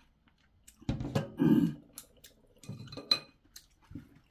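A dinner plate and chopsticks knocking and clinking as they are handled and set down on a table. There is a cluster of knocks about a second in and a sharp ringing clink about three seconds in.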